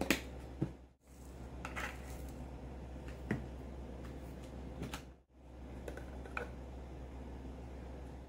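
Light clicks and taps from spice containers and a measuring spoon being handled over a glass mixing bowl, over a steady low hum. The sound cuts out briefly twice.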